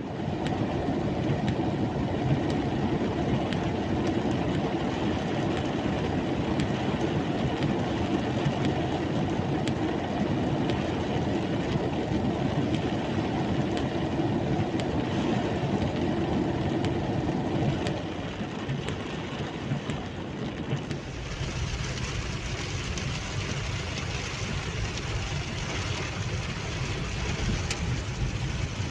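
Heavy downpour on a moving car, heard from inside the cabin: steady rain noise on the roof and windshield mixed with the rumble of tyres and engine on a wet road. Around 18 seconds in the low rumble drops away briefly, then the rain comes back brighter and hissier over a deep rumble.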